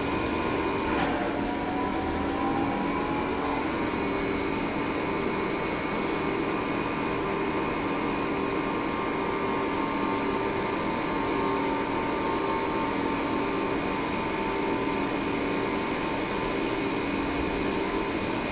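CNC lathe running: a steady machine hum carrying several high, whining tones, with a brief shift in pitch about a second in.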